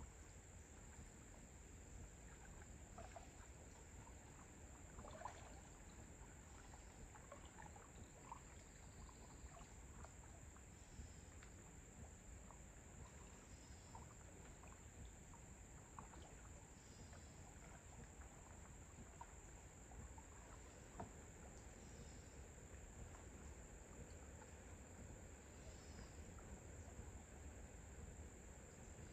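Faint outdoor pond ambience: a steady high-pitched insect drone, with scattered faint chirps and soft splashes of a kayak paddle stroking in the distance.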